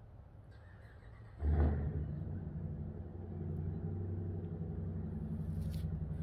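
A motor vehicle's engine running, coming in suddenly about a second and a half in as a loud low rumble and then holding as a steady low hum.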